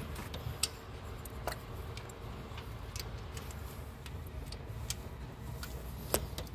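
A few scattered light clicks of valvetrain parts being handled by hand as new lifters are fitted under the rocker arms of a RAM 1500's 4.7-litre V8, over a low steady hum.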